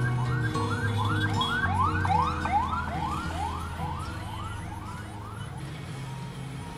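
Emergency-vehicle siren in a fast yelp: quick rising-and-falling sweeps about three times a second, fading and stopping a little over five seconds in.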